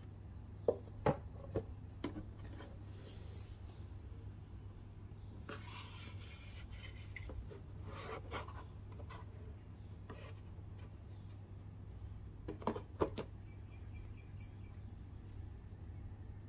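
Hands handling a glass perfume bottle and its cardboard presentation box. Sharp clicks and knocks come three in quick succession about a second in and again in a cluster near 13 s, with a short stretch of rubbing and rustling in between as the bottle is worked out of its fitted insert. A low steady hum runs underneath.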